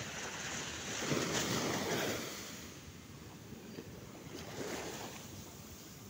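Small waves breaking and washing up the sand in shallow surf, with one louder surge about a second in and a smaller one near five seconds.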